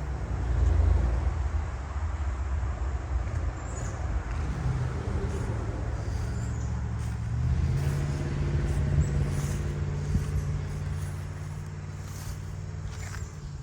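Road traffic going by: low engine and tyre rumble, loudest about a second in, with another vehicle's engine hum building around the middle.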